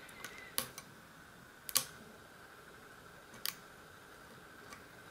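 Lock pick working the pin tumblers of a euro-profile cylinder lock under tension: a handful of sharp, scattered metallic clicks, the loudest about two seconds in.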